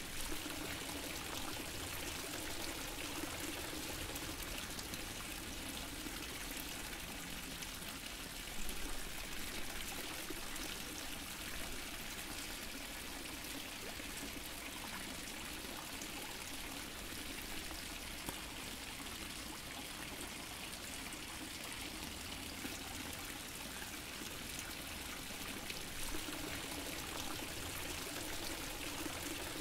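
Water fountain running: a steady splash and trickle of falling water, with a few slightly louder splashes about nine seconds in.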